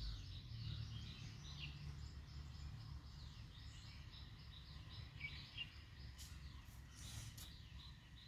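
Small birds chirping, a quick run of short high calls repeated throughout, over a low steady rumble. A few faint clicks come about six to seven seconds in.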